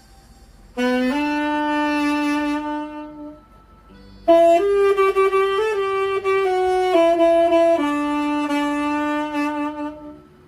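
Solo wind instrument playing a slow melody of long held notes, in two phrases separated by a short pause about three and a half seconds in.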